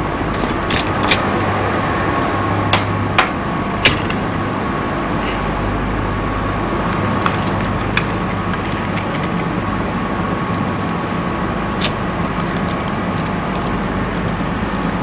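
A steady low hum and rushing background drone with a thin steady tone, broken by a few sharp clicks: several in the first four seconds, a couple around eight seconds in, and one near twelve seconds.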